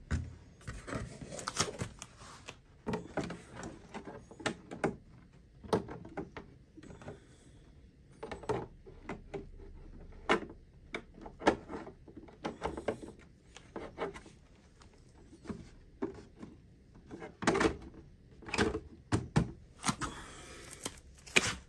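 Plastic body shell of an RC rally car being handled and fitted onto its chassis: irregular clicks, knocks and rustling of plastic against plastic.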